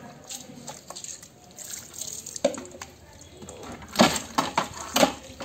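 Water tipped from a plastic mug over a wet dog being rinsed, splashing and running onto a concrete floor in a few short splashes, the loudest ones from about four to five seconds in.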